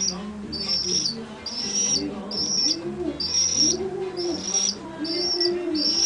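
Young pigeon cooing softly while its head is stroked: low, arching coo notes repeated several times, mostly in the second half. A high, thin peep repeats about once a second throughout.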